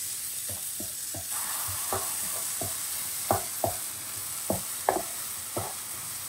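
Mushroom and vegetable filling sizzling in a frying pan as a wooden spatula stirs it. The spatula scrapes and taps against the pan at irregular intervals, roughly once or twice a second, over a steady hiss of frying.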